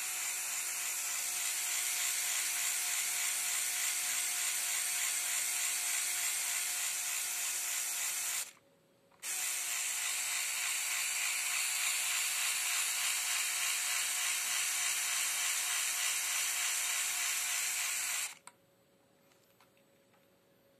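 LEGO EV3 motor driving a two-stage Lego Technic gear train of 8-tooth and 40-tooth gears (25:1 reduction), running with a steady high whir and gear chatter. It stops for under a second about eight and a half seconds in, runs again, and stops about two seconds before the end.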